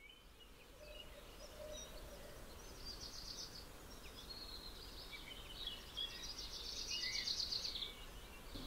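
Outdoor village ambience of small birds chirping and trilling over a steady low background hum, fading in at the start.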